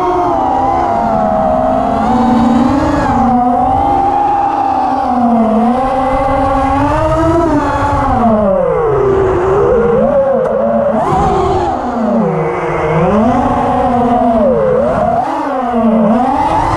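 Quadcopter drone motors and propellers whining, the pitch constantly rising and falling as the throttle changes through swoops and climbs.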